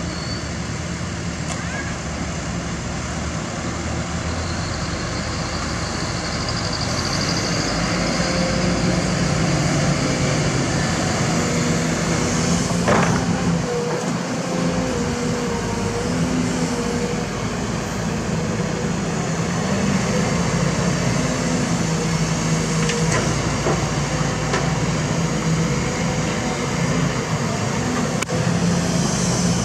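Kobelco SK200 hydraulic excavator's diesel engine running under load as it digs, with a steady low drone that rises about seven seconds in and a whine that wavers in pitch. A sharp knock comes about halfway through, and another near the end.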